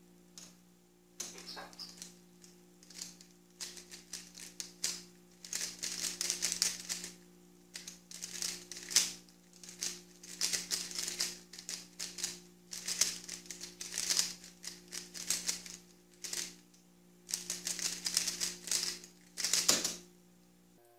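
Guoguan Yuexiao 3x3 speedcube turned rapidly through a timed solve: bursts of fast plastic clacking and clicking with short pauses between them. It starts about a second in and stops near the end.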